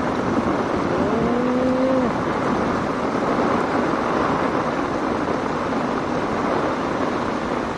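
Heavy rain pouring steadily on a street, with a car driving past through the water on the wet road. About a second in, a short steady tone sounds for about a second.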